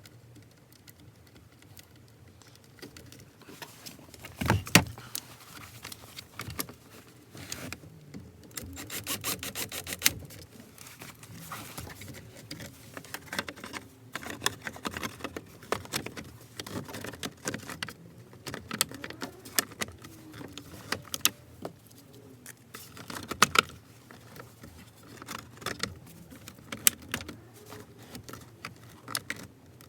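Hand tools and steering-column parts clicking, clinking and knocking as they are handled and refitted, with a quick run of rapid, evenly spaced clicks about nine seconds in.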